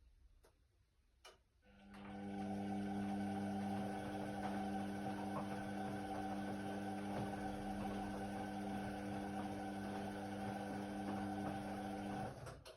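Indesit WIDL 106 washer-dryer: a click, then a steady hum with a hiss for about ten seconds that cuts off suddenly.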